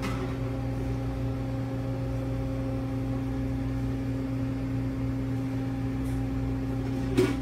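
Steady low electrical hum of restaurant equipment, holding several fixed tones at an even level, with a brief sharp sound near the end.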